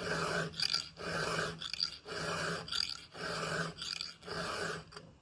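Round chainsaw file rasping across a saw chain's cutter tooth in steady hand strokes, about one a second, five in all, each followed by a shorter scrape: the chain being sharpened by hand.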